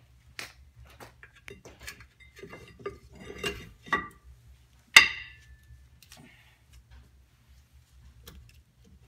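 Metal brake parts clinking and knocking as a pad and caliper are fitted over a car's disc brake rotor: scattered clicks, a quick run of clatter a few seconds in, then one sharp metallic clank about five seconds in that rings briefly.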